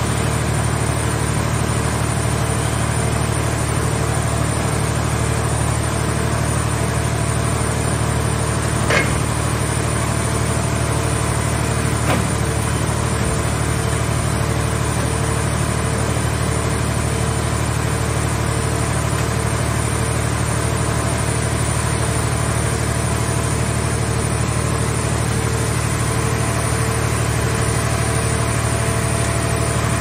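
Mobile car-shell baler's hydraulic power unit running steadily with a constant hum while its grapple crane works, with two brief metal clanks from the scrap being handled about nine and twelve seconds in.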